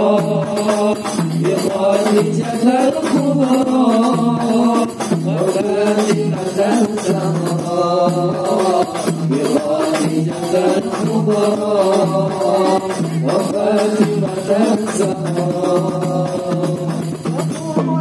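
Hadrah ensemble performing sholawat: voices chanting a devotional song together over rebana frame drums and a large hand drum, which keep a steady beat with jingling.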